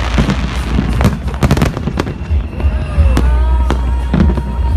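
Fireworks display: a rapid series of aerial shell bursts, each a sharp bang, over a continuous low rumble and crackle. Gliding high tones are heard in the second half.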